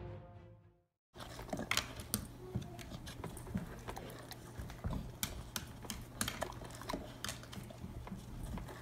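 Irregular small clicks and taps from a yellow Labrador retriever moving about close by, over a faint steady low hum. A music tail fades out in the first second.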